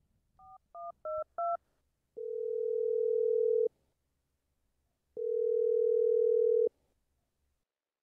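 Telephone call being placed: four quick two-pitch keypad touch-tone beeps, then two long ringback tones while the line rings at the other end.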